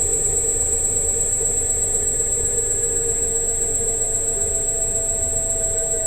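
Electric scooter running, with a steady electric whine and a constant high-pitched tone over low rumble; one tone slowly drops in pitch near the end.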